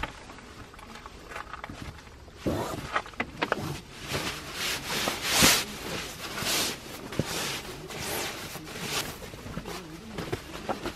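Nylon down sleeping bag rustling and swishing as it is unrolled and spread out by hand, with soft thumps of handling. The rustling starts a couple of seconds in and is loudest around the middle.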